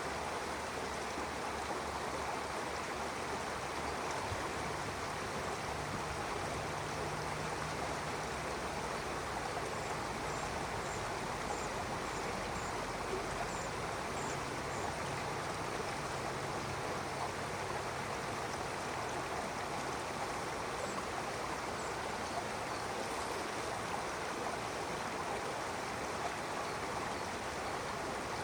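Stream water flowing and splashing in a steady rush. About ten seconds in, a faint run of short, high chirps sounds for a few seconds.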